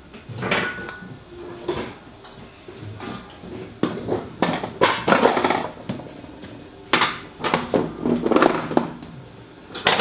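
Irregular clanks and knocks of ammunition canisters being handled, with bunches of strikes about four to five seconds in and again from about seven to nine seconds, over a low steady hum.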